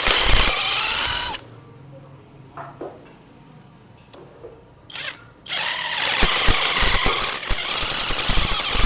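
Power tool run in three bursts on a motorcycle sprocket bolt: about a second and a half at the start, a brief one near five seconds, then a long run to the end. The bolt's threads are damaged, so its nut spins instead of coming undone.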